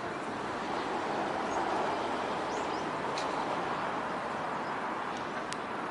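Steady outdoor background rush, even and unbroken, with a few faint short high chirps over it.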